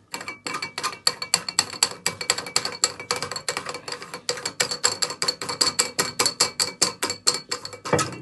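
Rapid, regular clicking, about six clicks a second, as the plastic cap of a toilet cistern's fill valve is fitted and screwed back on after its membrane has been replaced; the clicking stops near the end.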